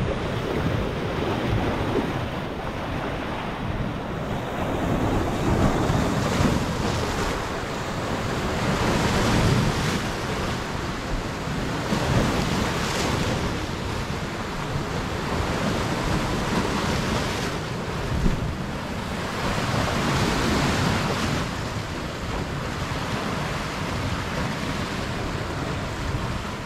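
Sea waves breaking and washing over a rocky shoreline, swelling and easing every few seconds, with wind buffeting the microphone.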